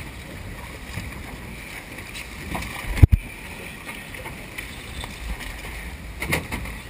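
Steady wind on the microphone over water and boat noise on an open boat deck, with one sharp knock about three seconds in, the loudest sound, and a fainter knock near the end.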